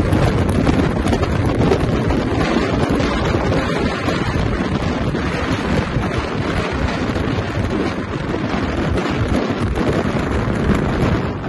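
Wind buffeting the microphone: a loud, constant, uneven rushing with a low rumble.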